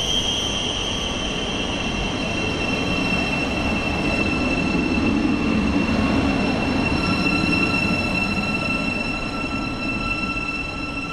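A train passing on the line, with a steady rumble that swells about midway and then eases. High, steady squealing tones ride over the rumble, and one more joins about two-thirds of the way through.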